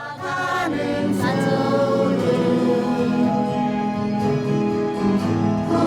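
A group of voices singing a slow song in chorus, with long held notes.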